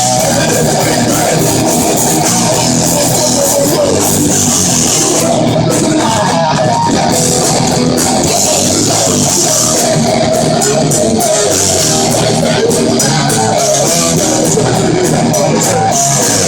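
Live heavy metal band playing an instrumental passage: distorted electric guitars and bass at loud, steady volume, recorded from the audience with a saturated, compressed sound.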